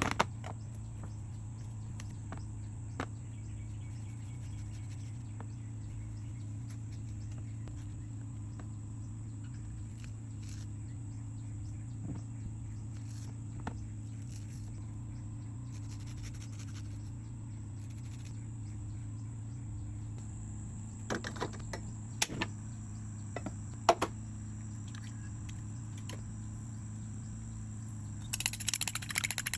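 A steady low hum under a constant high-pitched insect-like chirring, with a few scattered clicks and a cluster of sharp knocks a little over two-thirds of the way in, and a brief rustle near the end.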